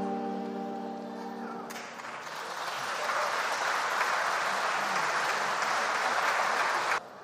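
A choir's final held chord fades out, and about two seconds in an audience breaks into steady applause that cuts off abruptly near the end.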